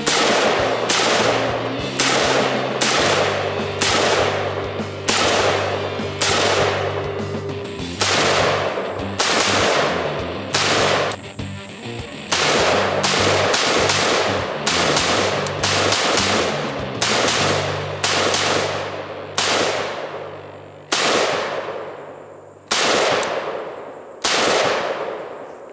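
Zastava PAP M92 PV pistol in 7.62x39 fired semi-automatically: about thirty single shots at roughly one a second, each with a ringing echo that fades away. The shots space out to a couple of seconds apart near the end.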